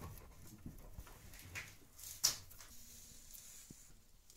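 Light clicks and knocks of metal parts being handled at the rear brake caliper's parking-brake mechanism, with the sharpest click a little over two seconds in.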